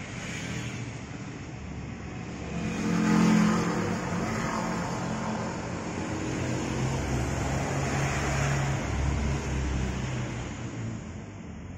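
A motor vehicle's engine running past, loudest about three seconds in, with its pitch dropping afterwards and fading out near the end.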